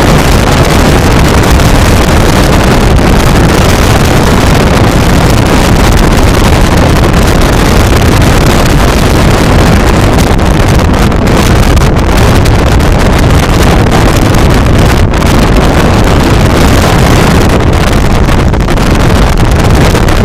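Loud, steady rush of wind buffeting the microphone on a moving motorboat at sea, with the boat running underneath it.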